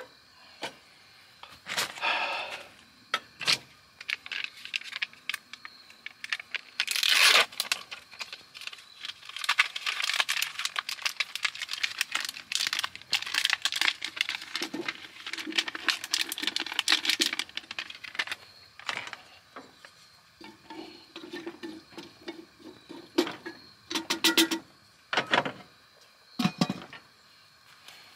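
Camp cookware and food handling: irregular clinks, clicks and crinkling as pots, utensils and packaging are handled.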